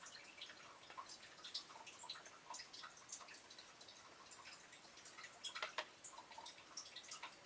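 Faint, irregular light ticking and clicking of a Beyblade spinning down in its plastic stadium.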